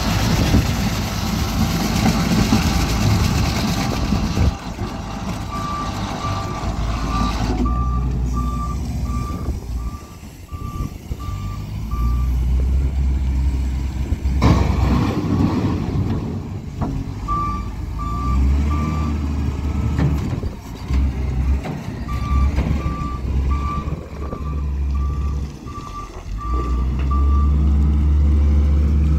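Case 721 wheel loader's diesel engine running under load, with its reversing alarm beeping in three runs of steady, evenly spaced beeps as it backs up. At the start there is a rush of noise as chopped beet pours from the tipped bucket.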